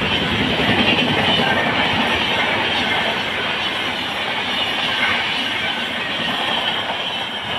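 LHB passenger coaches of an express train running past at speed: a loud, steady rush of wheels on rail with clatter from the bogies.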